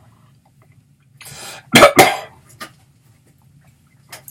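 A person coughing: two loud coughs in quick succession just under two seconds in, after a short breath.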